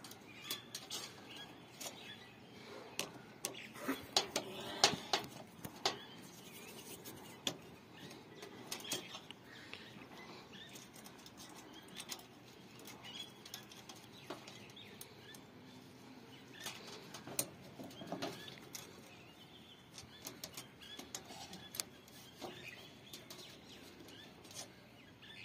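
Scattered light clicks and taps of hands and tools working a phase wire into the tower AC's terminal block, over faint bird chirps in the background.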